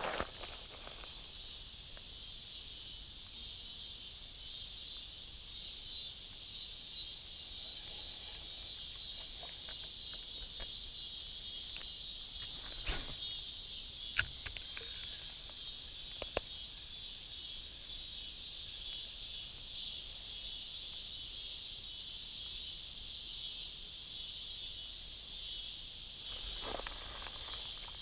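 A steady, high-pitched chorus of insects, with a few faint clicks about halfway through.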